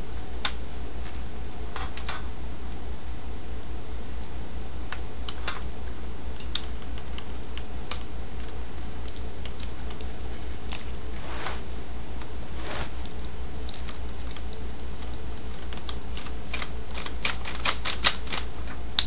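Scattered small clicks and taps of plastic and metal parts being handled while a DVD player is taken apart, with a quick flurry of clicks near the end, over a steady low hum.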